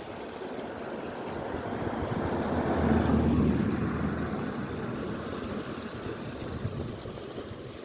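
Wind on the microphone mixed with sea wash, a steady rushing that swells to its loudest about three seconds in and then eases off.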